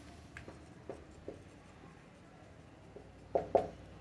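Marker pen writing on a whiteboard: a run of short, separate strokes, the two loudest close together a little before the end.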